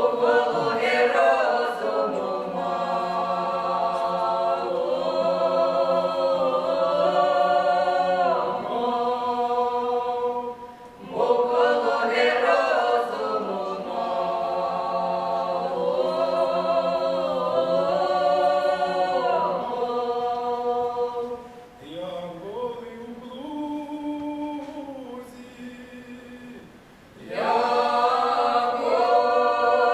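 Mixed men's and women's voices singing an unaccompanied Ukrainian Cossack song in close folk polyphony, in long drawn-out phrases. The group breaks for breath about eleven seconds in. A thinner, quieter passage with fewer voices runs from about twenty-two seconds in, and the full group comes back in near the end.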